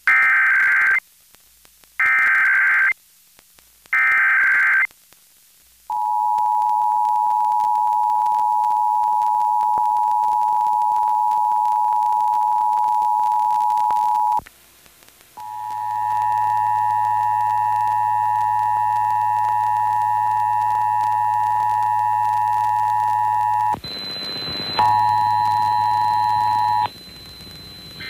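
Emergency Alert System test signal on FM radio: three short warbling SAME data bursts about a second apart, then the steady two-tone attention signal for about eight seconds. After a short break the two-tone sound returns with a low hum under it and a brief noisy burst, stopping about a second before the spoken test message.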